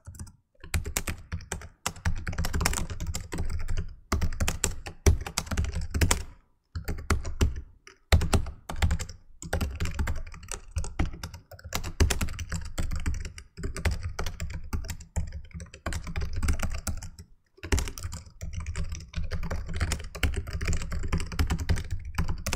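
Fast typing on a laptop computer keyboard: rapid runs of key clicks, broken by short pauses every couple of seconds.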